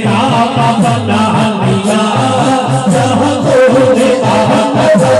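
Devotional Urdu naat music: a melody with a steady held tone underneath and shaker-like percussion throughout, part of a man's sung naat between lines.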